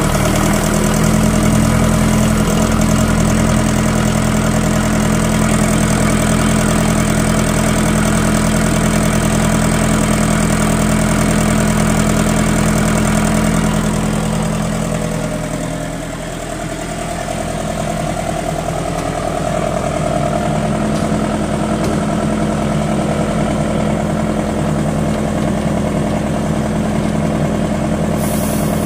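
Four-cylinder diesel engine of a generator set running steadily, with a brief dip in level about halfway through before it settles back.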